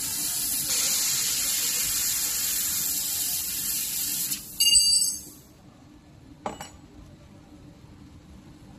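Handheld fiber laser cutting head's assist gas hissing steadily as it cuts through a small metal plate, ending about four and a half seconds in with a short, louder burst carrying several ringing tones. A single short knock follows a couple of seconds later.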